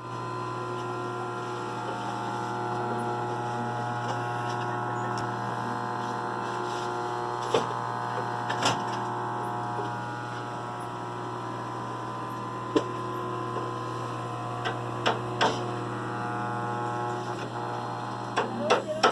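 Steady electric hum, with a few sharp clicks and, near the end, a quick cluster of knocks.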